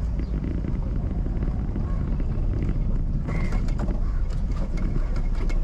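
Steady low rumble of a car being driven: road and wind noise. In the second half there are a few faint clicks and short high notes.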